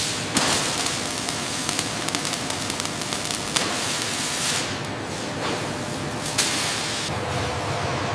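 Assembly-line factory noise: a steady hiss with scattered sharp clicks and knocks.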